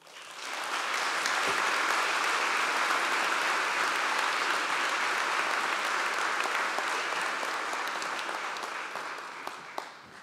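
Audience applauding: the clapping swells up within the first second, holds steady, then dies away over the last two seconds or so.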